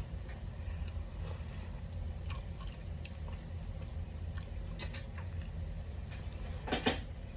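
Eating sounds: small clicks and scrapes of a utensil in a bowl of curry chicken, with quiet chewing, over a steady low hum. Two short, louder scrapes come about five seconds in and near the end.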